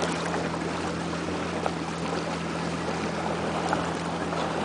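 Boat engine running steadily as a low, even hum, with wind and water noise.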